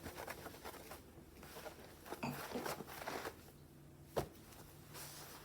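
Quiet handling noises, soft rustling and scraping, with one sharp click about four seconds in.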